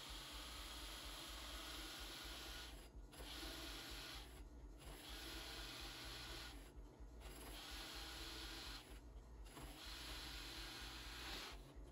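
A hole saw in a Ridgid drill press rasping as it cuts into a wooden board, over the steady hum of the motor. The cutting stops for a moment four times and ends shortly before the end.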